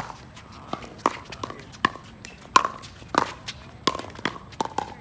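Pickleball rally: a hard plastic ball is hit back and forth with solid paddles. The hits and court bounces make sharp, hollow pocks about twice a second, with footsteps on the hard court between them.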